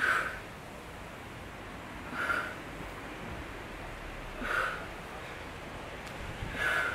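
A person breathing out hard four times, about every two seconds, with each squat repetition under the pull of a resistance band.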